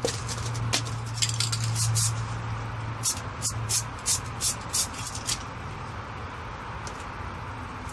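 Red spray-paint aerosol can giving a quick series of short hissing bursts, a few a second, about three to five seconds in, after a first cluster of short bursts around the first two seconds.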